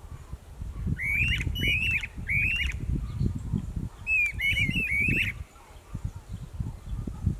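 A pair of streamer-tailed tyrants calling in duet: two quick bursts of short notes that rise and fall, the first about a second in and the second about four seconds in. A low rumble runs under the calls throughout.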